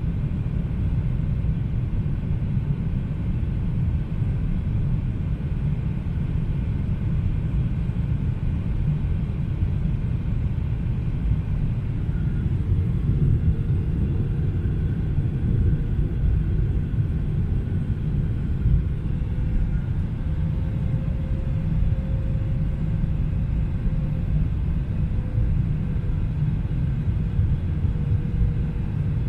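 Steady low rumble of cabin noise inside a Boeing 777-300ER airliner, from its GE90 jet engines and the airflow over the fuselage. A faint, steady engine hum joins in about halfway through.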